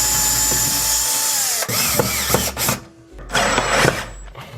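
Power drill driving a screw to fasten a stair handrail: a steady motor whine that drops in pitch as the motor slows, about a second and a half in, then some knocks and a second, shorter run of the drill.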